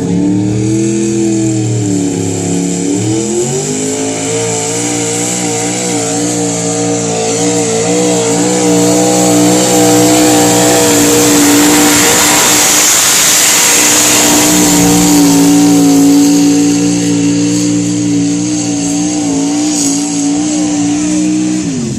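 A pulling truck's engine is held at high revs under full load as it drags the sled down the track. The revs dip briefly about two seconds in, climb back and hold with a slight waver, loudest in the middle. They drop off near the end as the pull finishes.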